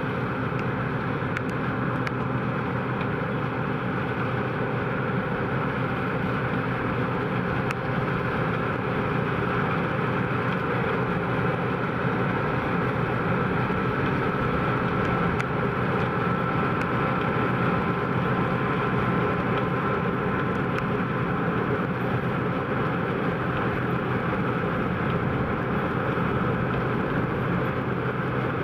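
John Deere 9560i combine harvester running steadily under load while harvesting barley: an even engine hum with a faint high whine from the machinery.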